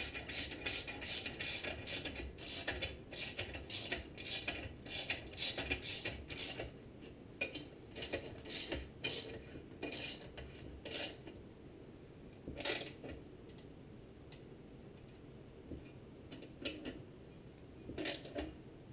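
Hand socket ratchet clicking as it tightens a muffler bolt on a small engine: rapid clicking for the first six seconds or so, then slower, scattered clicks.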